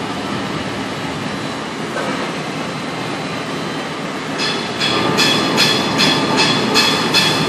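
Steady steel-shop machinery noise. About four and a half seconds in, a shrill warning beeper from moving heavy equipment starts, sounding rapid short beeps at about two and a half a second.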